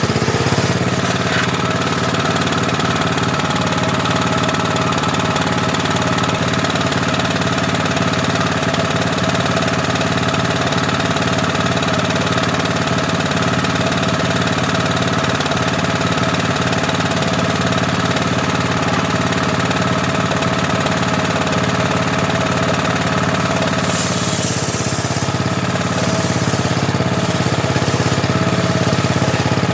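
Engine powering a homemade table saw, running steadily. About 24 seconds in, a brief high hiss joins it and the engine note shifts for a moment.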